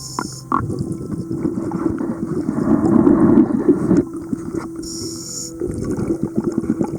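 Underwater sound picked up inside a camera housing during a scuba dive: the diver's regulator breathing, with short hissy inhalations and a louder bubbling exhalation about two to four seconds in, over a steady low hum.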